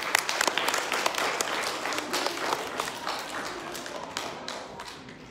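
Audience applauding, the clapping thinning out and fading away over a few seconds.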